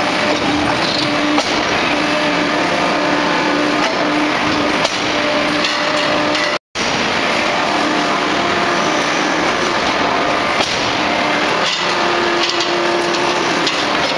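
800-ton hot-forging hydraulic press running in a forging shop: a loud, steady mechanical din with a faint hum that comes and goes and a few knocks. The sound drops out for a split second about halfway through.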